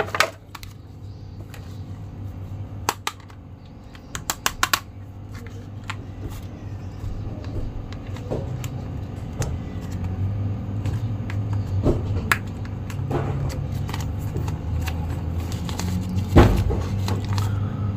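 Hard plastic toy figures and their clear plastic packaging being handled: scattered clicks and taps, with a quick run of clicks about four seconds in, over a steady low hum that grows louder in the second half.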